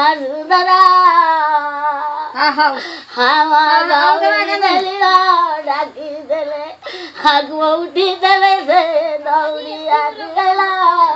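An elderly woman wailing a sung lament over her dead pet cat, her high voice drawn out in long wavering phrases that slide up and down, with short breaks between them.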